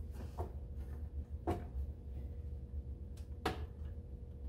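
Two short knocks about two seconds apart, the second louder, as a panel-mount temperature controller is handled and pushed into the opening of an oven's sheet-metal control panel, over a steady low hum.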